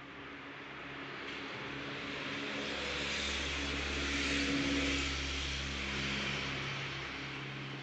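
Engine noise of something passing by, swelling to a peak about halfway through and then fading, over a steady low hum.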